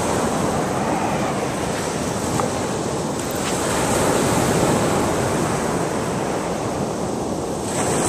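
Surf washing in over the sand at the water's edge, a steady rushing that swells about halfway through and eases near the end, with wind on the microphone.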